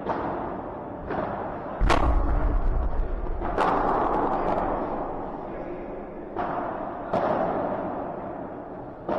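A padel rally: the ball popping off paddles and bouncing, about six sharp hits, each echoing around a large hall. The loudest hit, about two seconds in, carries a deep thud.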